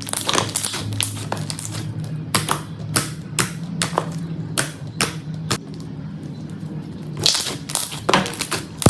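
Slime being pressed and poked by hand, giving a string of sharp, irregular clicking pops, a couple a second, with a short lull before two more near the end.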